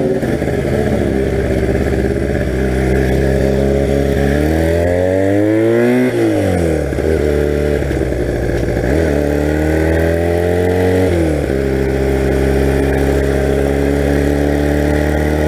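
1982 Honda motorcycle engine under way, revving up through the gears: the pitch climbs and then drops sharply at an upshift about six seconds in and again about eleven seconds in, and runs steady in between and afterwards.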